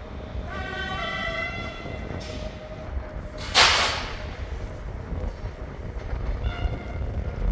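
Train running through the station: a steady low rumble with brief high-pitched squealing, and a sudden loud hiss about three and a half seconds in.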